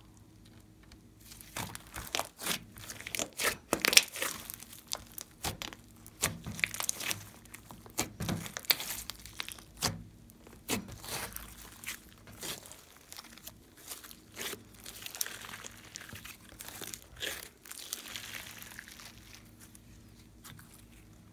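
Hands squeezing, stretching and folding glossy slime: a run of sticky clicks and pops as trapped air bursts, starting about a second in and thickest in the first half, with a softer crackling stretch later on.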